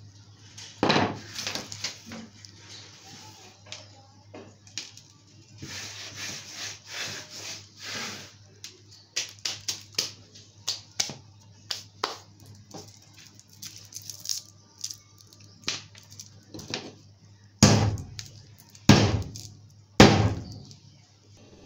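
Hammer blows crushing wrapped hard candies on a tabletop, with sharp cracks of breaking candy; three heavy strikes near the end are the loudest, after a run of lighter knocks and taps.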